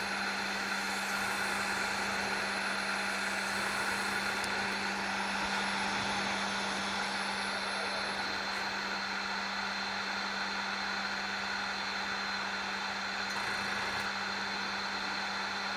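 Wood lathe running steadily, a constant motor hum with a low tone under an even whir. It cuts off suddenly at the end.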